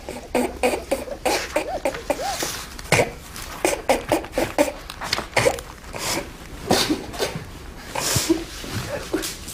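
A man laughing helplessly in repeated short, breathy bursts and giggles: drug-induced hilarity from a THC and cannabidiol injection.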